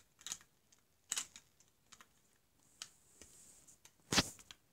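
Light clicks and taps of plastic LEGO pieces being handled as a toy van is moved about, with one louder knock about four seconds in.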